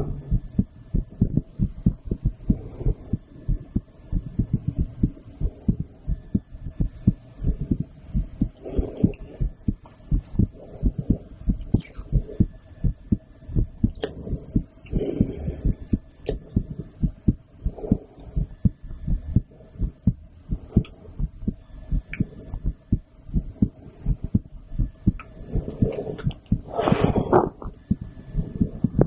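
A woman's heartbeat heard through a stethoscope, beating steadily as a run of low thuds over a faint steady hum. A few brief louder scratchy noises come through now and then.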